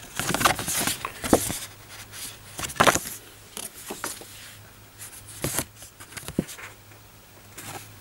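Paper leaflets and card being handled and unfolded, rustling in irregular bursts that are loudest about a second and a half and three seconds in.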